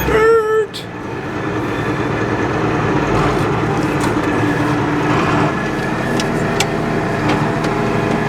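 Farm tractor engine running steadily. A brief wavering, pitched tone sounds at the very start.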